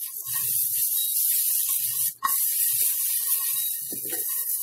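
Marinated potato, onion and capsicum tikkas sizzling steadily in a hot non-stick pan, with a few soft low knocks as the pan is moved on the induction cooktop. The sizzle breaks off for an instant about two seconds in.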